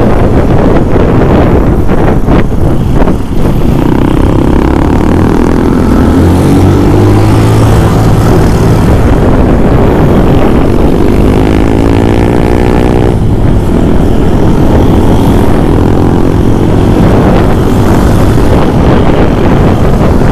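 Motorcycle engine running under heavy wind buffeting on the bike-mounted microphone as the bike rides along. The engine note climbs slowly for several seconds, then breaks off sharply about 13 seconds in.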